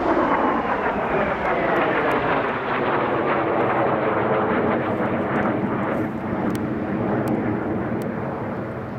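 Jet engines of two aircraft flying over in formation: a loud jet roar with a whine that falls in pitch over the first couple of seconds, then a steady rumble that eases off near the end.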